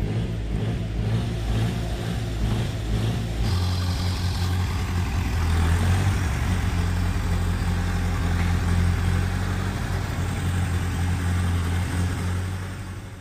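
Massey Ferguson tractor engine running steadily, its note changing about three and a half seconds in as the tractor is driven. The engine is running again after a carburetor change that was meant to cure its fuel-starved hard starting.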